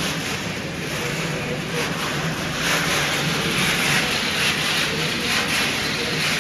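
Pet food production line machinery running: a steady mechanical hum and whir with a low drone underneath.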